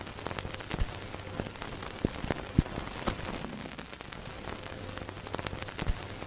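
Steady crackle and hiss with irregular sharp pops, like the surface noise of an old record or worn film soundtrack.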